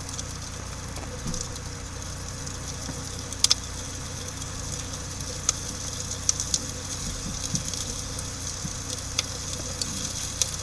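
Campfire burning with a steady hiss and scattered sharp pops and crackles, the loudest a quick double pop about three and a half seconds in.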